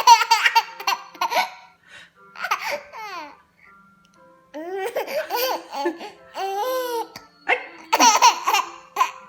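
Baby laughing in repeated bursts of giggles and high squeals that rise and fall in pitch, with a pause of about a second before the middle.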